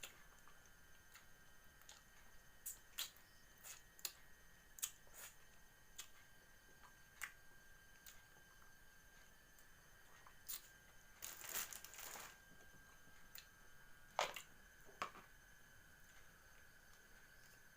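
Faint, scattered small crunches, crackles and rustles of someone eating cooked catfish by hand, with a louder cluster a little past the middle. A faint steady high tone hums underneath.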